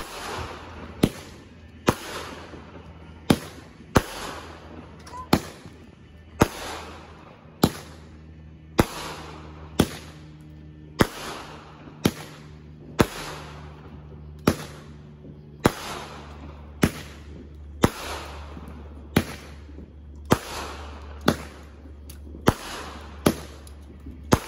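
Aerial fireworks going off in a steady, rapid series, a sharp bang about once a second, each followed by a fading hiss of sparks.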